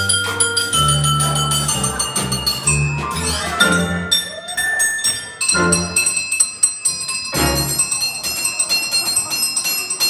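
Vibraphone solo, its metal bars ringing on after each stroke, over upright bass notes.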